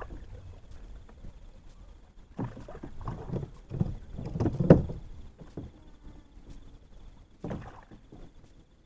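Handling noises in a plastic fishing kayak: a few short bumps and scrapes against the hull, in a cluster about two and a half to five seconds in, loudest near the end of that cluster, and once more near the end.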